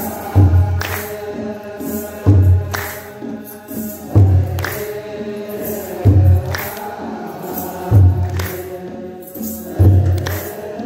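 Ethiopian Orthodox mahlet chant: a group of debteras singing together, with tsenatsel sistra jingling on each stroke and a kebero drum beating slowly, a deep thump about every two seconds.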